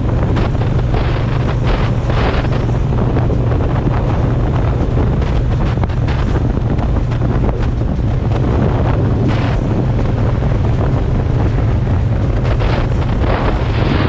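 Wind buffeting the microphone of a moving motorcycle in irregular gusts, over the steady low drone of a Triumph Bonneville T120's 1200 cc parallel-twin engine holding a cruising speed.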